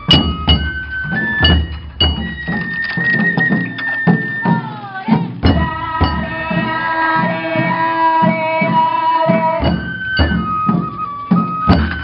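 Japanese float-festival music (dashi-bayashi): taiko drums beating steadily while a bamboo flute plays high notes, holding one long note in the middle.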